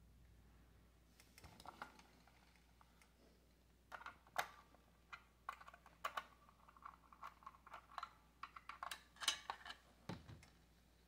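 Faint clicking and scraping of a small screwdriver working the screw of a Furby's plastic battery door, with handling of the toy's plastic base; a soft thump near the end as the battery door comes open.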